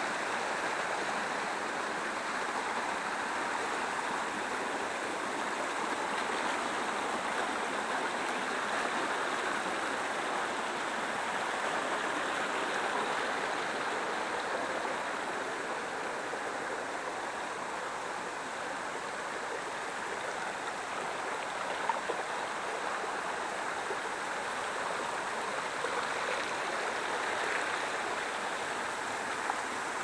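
Rocky mountain stream rushing over stones: a steady rush of running water.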